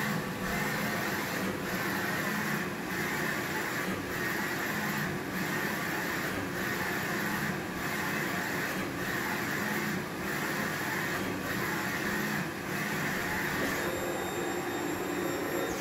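Direct-to-garment printer printing a t-shirt: the print-head carriage sweeps back and forth in a steady rhythm, about one pass every second or so with a brief pause between, over a constant motor hum. Near the end the passes stop and a steadier whirring takes over.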